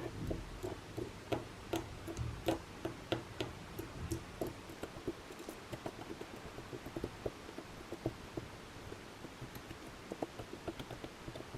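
Small steel bearing balls clicking one by one into the ball track of an HGR20-type linear guide carriage as they are placed with tweezers: light, sharp, irregular metal clicks, a few a second.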